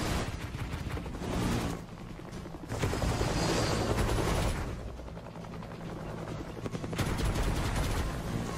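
A fast, dense chopping rattle in three loud surges with quieter stretches between, dubbed over a flying toy army helicopter.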